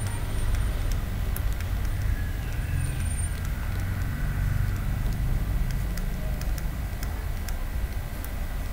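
Low, steady background rumble with scattered faint clicks.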